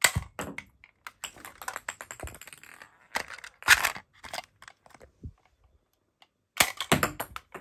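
Rapid plastic clicking and rattling from a clear plastic toy ball gun as it is worked and loaded with small plastic balls. The clicks stop for about a second about two-thirds of the way through, then start again.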